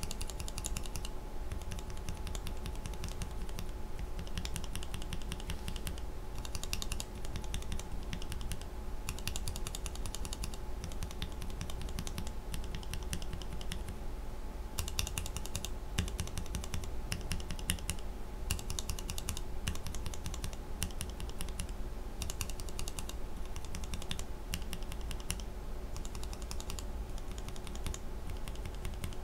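Gateron-made Revo White mechanical keyboard switches, each lubed with a different grease, pressed rapidly over and over in short runs of clacking with brief pauses between them, as each switch is tried in turn to compare how the lube changes its sound.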